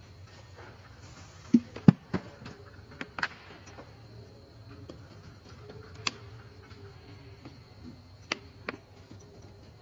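Outdoor ambience: a low background hum and a faint steady high whine, broken by a scattering of sharp clicks and taps, the loudest about two seconds in and a few more later.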